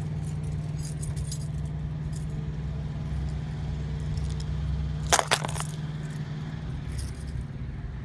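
A steady low machine hum, with a short burst of sharp, metallic jingling clicks about five seconds in.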